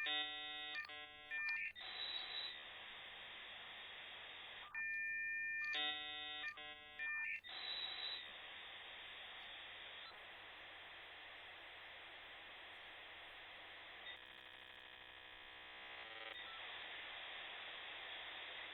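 Dial-up modem handshake carried over a telephone line: short bursts of stacked, rapidly switching tones and a steady two-tone alternate with long stretches of even hiss as the two modems negotiate the connection.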